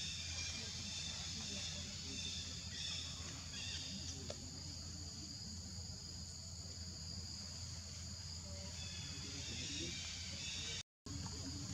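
Steady high-pitched chorus of forest insects over a low rumble of background noise, with patches of chirping; the sound cuts out for a moment near the end.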